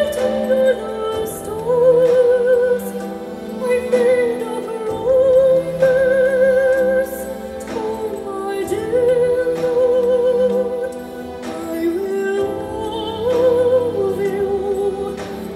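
Music played through JL Audio C5-650 component speakers, driven by the built-in amplifier of a Sound Navi NR-MZ90PREMI car head unit: a female classical-crossover voice sings long held notes with a wide vibrato over instrumental accompaniment.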